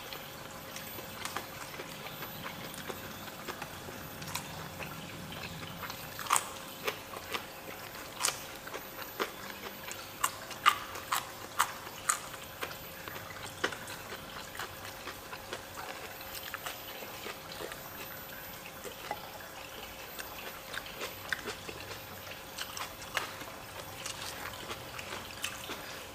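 Eating sounds from people eating rice, fried fish and raw vegetables by hand: chewing and crunching with irregular sharp clicks of food and fingers on plates, over a faint steady hum.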